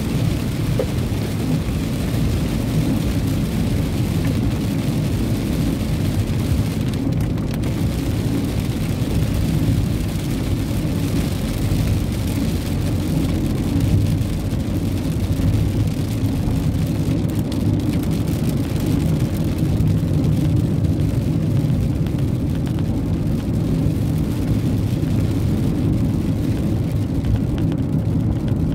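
Steady low rumble of a car driving on a wet road in rain, heard inside the cabin: tyre and engine noise with rain on the car.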